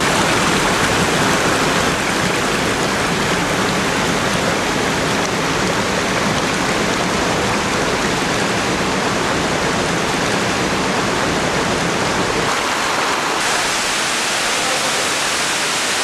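Water rushing over rocks in a stream and waterfall: a loud, steady hiss without a break, its tone shifting slightly about twelve to thirteen seconds in.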